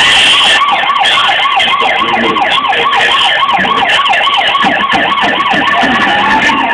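Siren sound wailing rapidly up and down, about four to five sweeps a second, settling into a steady held tone near the end.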